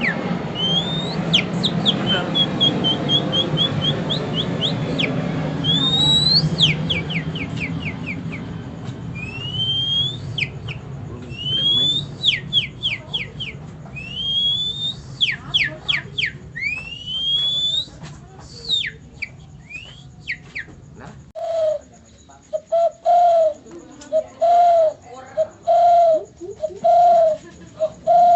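A man mimicking songbirds by mouth: quick whistled rising sweeps and trills. Near the end this gives way to a low dove-like coo repeated about once a second.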